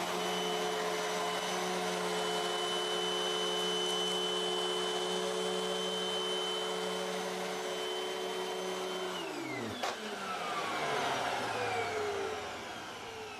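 Hoover Windtunnel MAX upright bagless vacuum running steadily with a constant motor whine. About nine seconds in it is switched off: the whine falls in pitch as the motor spins down, with a sharp click partway through.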